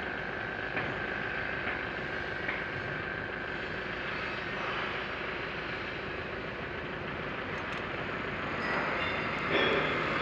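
Steady hum of a running machine in the background, with light ticks about once a second over the first few seconds. Louder clatter near the end as intake hose and parts are handled on the engine.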